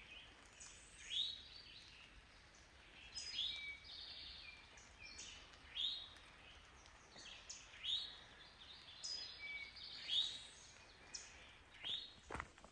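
Forest songbirds singing faintly: short rising chirps and whistled notes every second or two. A few footsteps come in near the end.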